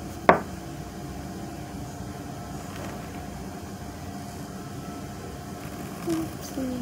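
Steady background hum of a small room, with one sharp knock on the desk about a third of a second in, as a pencil or a small eraser meets the tabletop. Near the end come two short low hummed tones.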